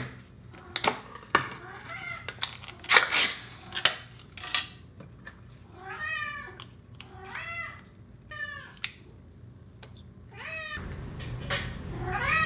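Sharp metallic clicks and clanks as a can of pâté cat food is opened and forked out, loudest in the first few seconds. Then a cat meows in a run of short calls, and once more near the end, asking for the food.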